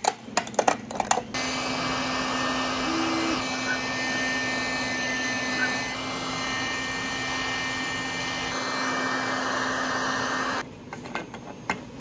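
A few quick snaps of pliers clipping support material off a 3D-printed part, then a handheld heat gun blowing steadily over the print for most of the time. The heat gun cuts off about a second before the end.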